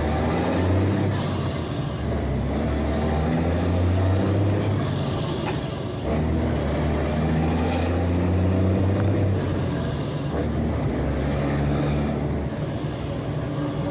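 Mercedes-Benz 1634 truck's electronic six-cylinder OM 457 diesel on a straight-through exhaust, pulling under load: the engine note climbs with the revs, drops about six seconds in at a gear change, climbs again and falls near the end. A few short air hisses come through over it.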